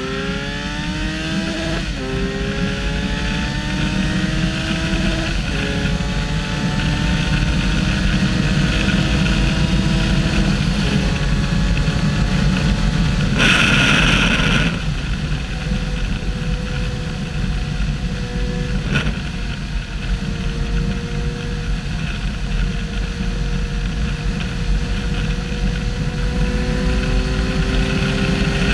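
Kawasaki Versys 1000's inline-four engine accelerating hard at high speed, its pitch climbing and dropping back at each of three upshifts in the first ten seconds or so, under heavy wind roar. About halfway there is a brief loud rush of noise, then the engine holds high revs, its pitch creeping up again near the end.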